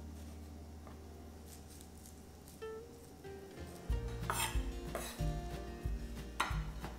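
Background music with a low sustained bass; from about four seconds in, a few light knocks and brushing sounds as separated enoki mushroom stems are gathered off a wooden cutting board and dropped into a glass dish.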